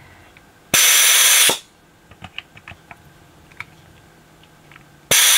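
Vacuum desoldering gun's pump hissing in two bursts, each just under a second and about four seconds apart, as it sucks molten solder from a capacitor's leads on a circuit board. Light clicks between the bursts.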